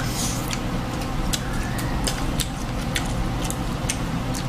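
Scattered clicks and crackles of seafood-boil shells being cracked and picked apart while eating, over a steady low hum.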